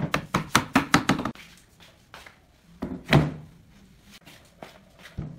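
Rubber mallet tapping a wooden wedge into the through-tenon of a pine table base's stretcher: about seven quick, sharp wooden knocks in the first second and a half. About three seconds in comes a single heavier wooden thunk, followed by a few light knocks.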